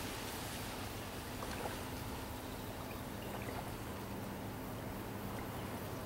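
Small waves gently lapping and trickling at a reedy lakeshore, with a few light splashes. A faint steady low hum runs underneath.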